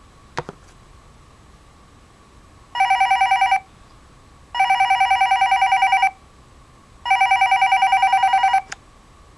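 Pink Sailor Chibi Moon toy cordless phone ringing with an electronic ringtone: three warbling rings, each about a second or more long and pulsing rapidly. There is a click about half a second in and another just after the last ring.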